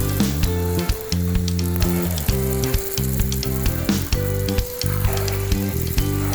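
Background music with held low notes that change in steps, over a steady crackling, sizzling hiss.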